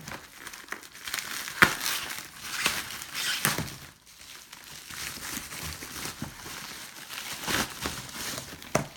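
Plastic packaging crinkling and rustling in irregular bursts as a kit bag is opened and its contents handled, with a few louder crackles.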